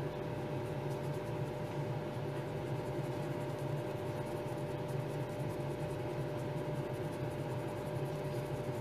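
Steady hum of a nail-desk dust extractor fan, with faint scratchy rubbing as a sponge applicator buffs chameleon chrome pigment onto a cured gel nail tip.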